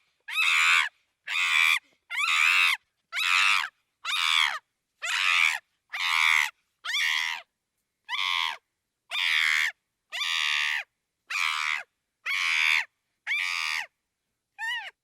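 Chimpanzee screaming: a run of about fifteen shrill, high-pitched screams, each about half a second long, repeated at roughly one a second with short silences between. Near the end comes a shorter cry that drops in pitch.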